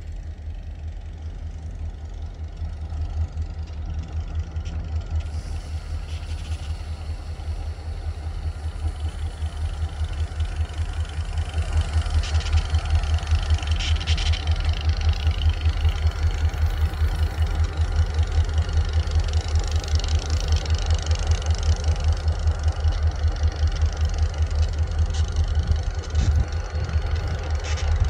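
Boise Valley Railroad diesel locomotives running: a deep, throbbing engine rumble that grows louder about ten seconds in as the locomotives come close.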